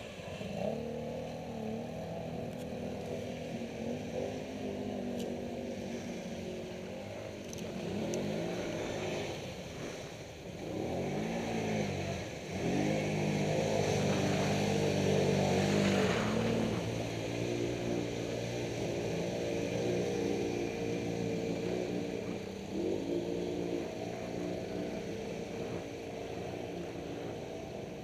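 ATV (quad bike) engines revving up and down as the quads drive through shallow lake water. One passes close about halfway through, loudest there, with water splashing.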